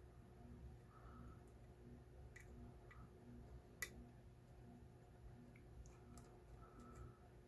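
Faint, scattered clicks of a lock pick and tension tool working the pin stacks inside an ACE 40 mm padlock, with one sharper click about halfway through.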